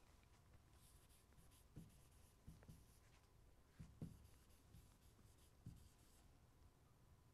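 Faint scratching of a stylus writing on the glass of an interactive touchscreen board, in short strokes, with a few soft thumps along the way. Otherwise near silence.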